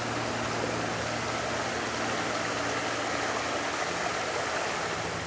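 Steady background noise, an even hiss with a faint low hum, unchanging throughout.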